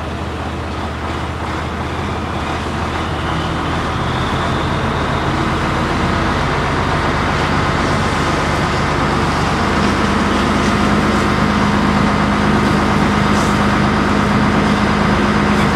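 Large truck engine running steadily, as of a fire engine pumping water to a hose line. It grows gradually louder, and a low steady hum joins about ten seconds in.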